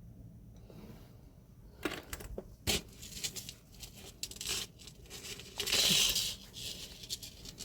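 Jewelry being handled and unwrapped: a few sharp clicks and knocks, then a short burst of packaging crinkling or tearing about six seconds in.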